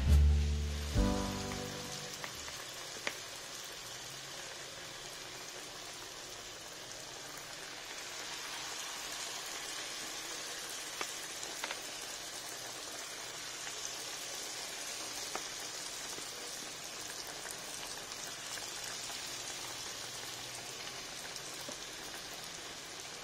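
Battered banana pieces deep-frying in a wok of hot oil: a steady sizzle with a few scattered pops. Soft background music stops about a second and a half in.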